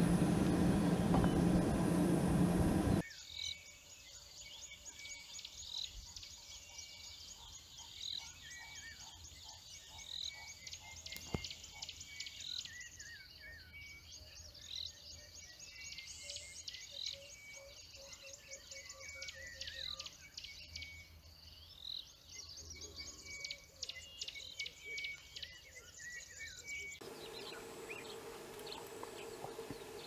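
A low engine-like rumble for the first three seconds cuts off. Then a flock of white-crested helmetshrikes keeps up a busy chatter of rapid calls and chirps as they mob an eagle. Near the end this gives way to a quieter background with a steady low hum.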